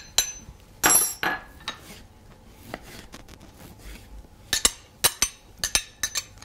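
Kitchen knife tapping on a wooden cutting board as tomatoes are sliced, and a metal utensil clinking against a small glass bowl as diced tomato is scraped out onto the pizza. There are a few sharp ringing clinks about a second in and a quick run of taps near the end.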